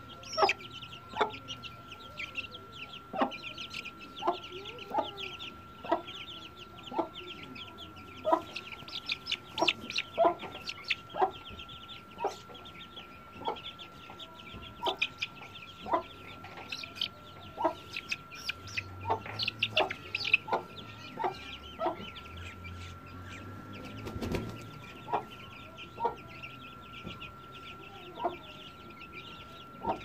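Aseel chickens calling: a run of short, sharp clucks and peeps, one or two a second, over a steady thin tone.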